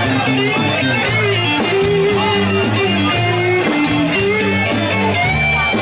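Live band playing: an electric guitar lead line with bending notes over acoustic guitar, a moving bass guitar line and drums.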